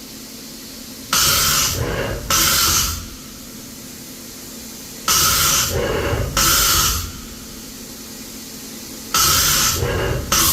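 Fanuc Robodrill α-T14iEL tapping center running a cycle: short blasts of hissing air come in pairs about every four seconds, over a steady machine hum.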